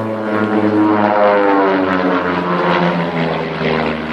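Propeller aircraft flying past, its engine note dropping in pitch as it goes by. It is loudest about one to three seconds in.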